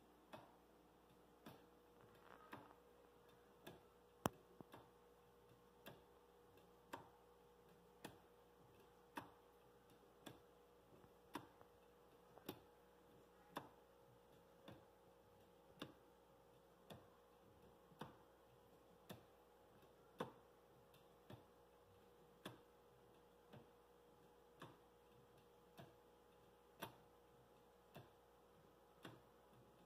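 Wooden deadbeat escapement cut from Baltic birch plywood, ticking steadily as its pallets catch the teeth of the escape wheel, about one sharp tick a second in time with the swinging pendulum.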